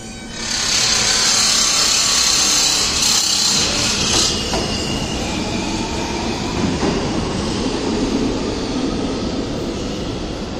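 R160A New York subway train pulling out of the station and rumbling away down the track. For the first four seconds a loud high hiss rides over the wheel noise, then the rumble carries on and slowly fades as the train recedes.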